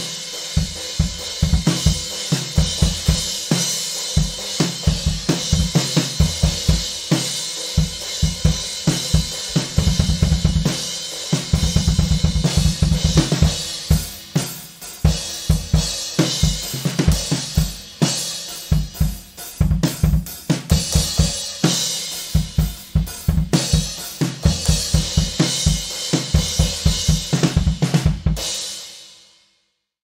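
A full drum kit played hard with Meinl Classics Custom Dark heavy crash cymbals: fast kick drum, snare and tom strokes under a constant wash of crashes. The playing fades out near the end.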